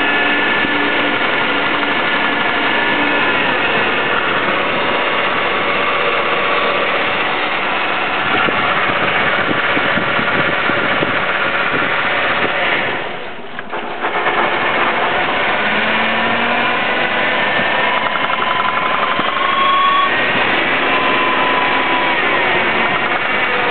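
Car engine running with a high-pitched whine made of several steady tones, the whine gliding up briefly a few times in the second half, with a short dip in loudness a little past halfway. The owner wonders whether a large vacuum leak or an EGR problem is behind it.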